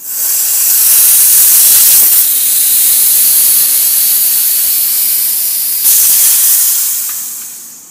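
Nitrogen holding charge rushing out of a Goodman R-22 condensing unit through its opened service valves with the Schrader cores removed. It makes a loud hiss that starts suddenly and fades away over the last couple of seconds. This is the purge that empties the factory nitrogen before the unit is charged with refrigerant.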